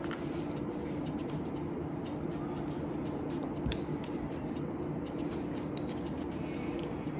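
Faint handling sounds of a damp knitted wool sock being worked onto a wooden sock blocker, with light scattered clicks and one sharper knock a little past halfway, likely the wooden blocker against the wooden table. A steady low hum runs underneath.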